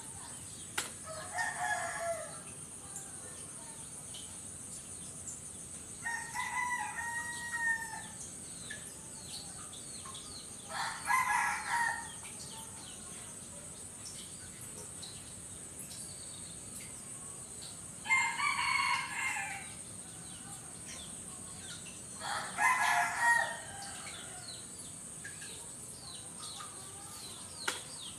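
Rooster crowing five times, each crow about two seconds long and several seconds apart, over a steady high hiss.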